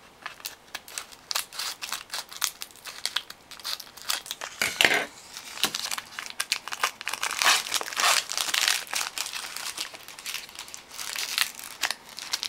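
Foil wrapper of a 2013 Topps Inception football card pack being torn open and crinkled by hand: a dense run of sharp crackles and rustles.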